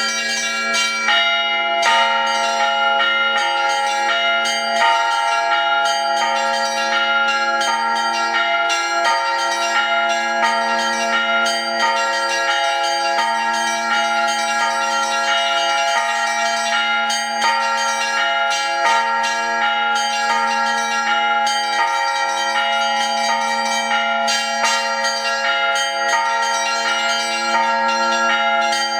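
Russian Orthodox bell ringing (zvon) on thin-walled bells together with thick struck metal bila: a dense, continuous peal of overlapping strikes with many tones ringing on, over a steady low ringing tone.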